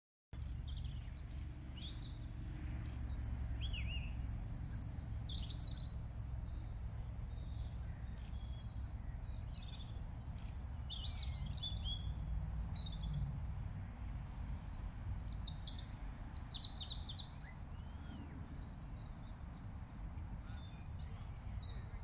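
Small birds chirping and twittering in short, high notes, some sliding down in pitch, scattered all through, over a steady low rumble.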